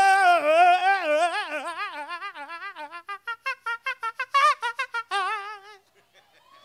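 A male R&B singer's voice alone, holding a high note with wide vibrato, then running down and up through a fast melismatic run that breaks into short, clipped notes before stopping about six seconds in.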